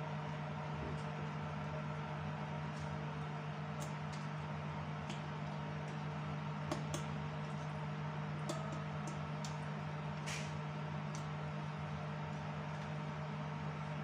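A steady low machine hum, like a fan or kitchen appliance, runs throughout. Over it come a few light clicks and knocks, loudest around the middle, as whole fish are laid one by one into a pot.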